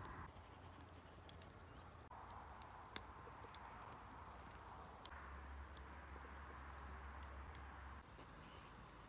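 Faint crackling of a wood fire in a metal fire pit: scattered, irregular pops and snaps over a soft, steady hiss.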